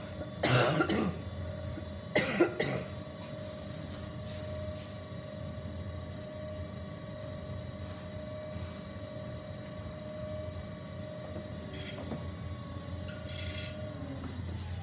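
Electric potter's wheel motor running with a steady whine that falls away near the end as the wheel slows. Two short coughs in the first three seconds.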